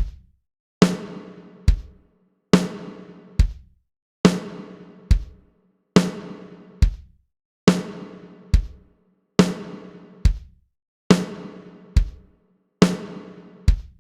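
A drum kit playing a slow, steady beat on its own, bass drum and snare taking turns about every 0.85 seconds. Each snare hit rings on with a pitched tone that dies away before the next bass drum hit.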